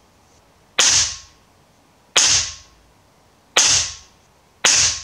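Four shots from a moderated Kral Puncher One PCP air rifle, about one and a half seconds apart, each a sharp, harsh crack that dies away within half a second: the moderator brings it down but still leaves the crack.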